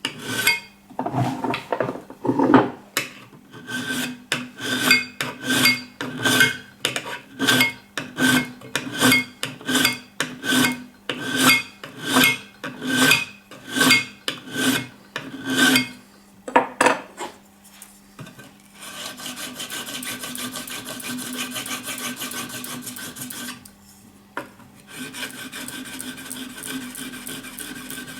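Stanley scraper-plane blade being sharpened, filed in even back-and-forth strokes about one and a half a second. After about eighteen seconds the strokes give way to a steady, continuous rubbing noise that breaks off briefly and then resumes.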